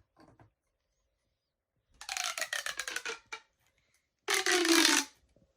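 Corrugated plastic pop tubes being stretched and squashed: two bursts of rapid ratcheting crackle, each with a slowly falling pitch. The second burst is shorter and louder.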